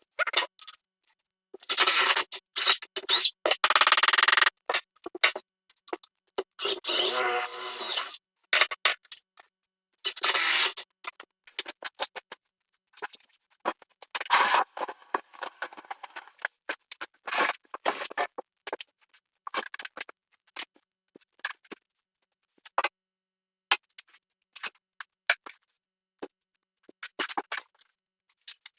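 Cabinet installation work: a string of scraping, knocking and clicking, with a few longer noisy bursts of a couple of seconds each, broken by sudden stops into silence.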